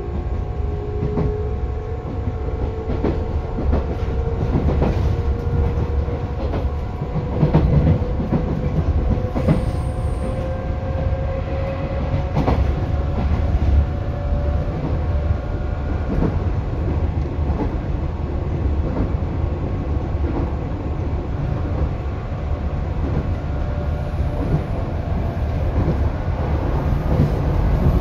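A 211 series electric multiple unit running on the rails over a steady low rumble, with scattered rail-joint clacks. A single whine rises slowly in pitch throughout as the train gathers speed.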